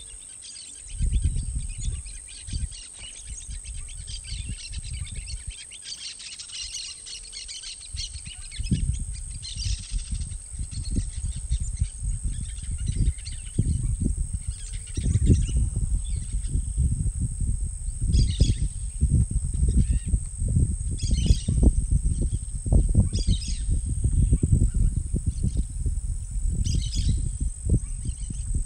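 Wild birds chirping and calling, with short calls repeating every second or two in the second half. A low, gusting rumble runs underneath and is the loudest sound from about a third of the way in, over a steady high whine.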